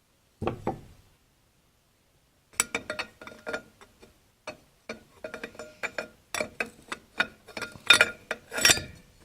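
Steel backing plate clinking against the input drum and clutch plates as it is fitted on top of the 3-4 clutch pack: two clicks, a short pause, then a run of quick metallic clinks with a light ring, loudest near the end.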